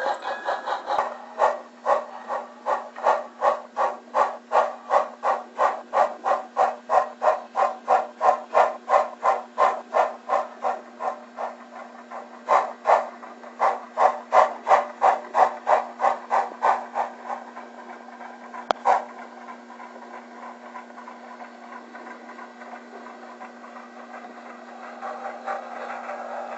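Exhaust chuffs from an On30 narrow-gauge model steam locomotive's sound system, a steady beat of about three a second. The beat breaks briefly near the middle and stops about two-thirds of the way through, leaving a steady low hum and faint hiss.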